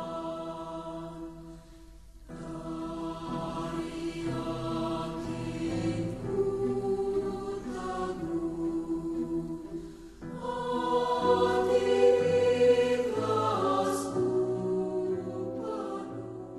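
Background music of a choir singing long held notes. It breaks off briefly about two seconds in and again about ten seconds in, and is louder after the second break.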